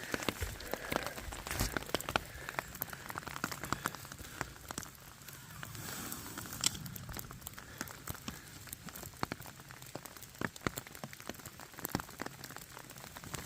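Steady rain falling, with many irregular sharp ticks of raindrops striking close by.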